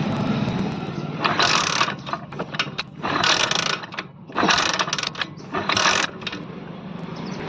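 Hero Honda CD Deluxe's single-cylinder engine running in gear after a primary gear repair, a steady low hum broken by four short bursts of rasping mechanical noise.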